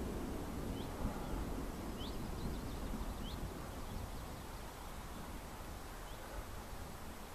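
Wind noise on the microphone, easing slightly, with a few short rising bird chirps scattered through it.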